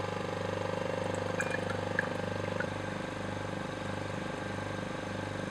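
Vacuum pump running steadily for vacuum filtration, a low pulsing hum, with a few faint ticks of liquid in the filter flask in the first seconds.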